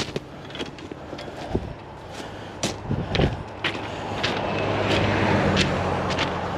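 An engine running steadily, swelling louder for a couple of seconds past the middle, with scattered sharp clicks and knocks over it.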